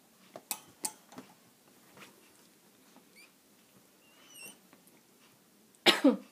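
Newborn puppies making faint high squeaks among soft rustling and clicks from the crate bedding. Near the end there is one louder, brief noisy sound that falls in pitch.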